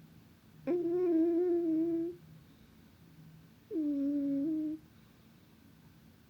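A cat's tonal, hum-like snoring: two drawn-out notes at a steady low pitch, the first over a second long starting about a second in, the second shorter a little past the middle.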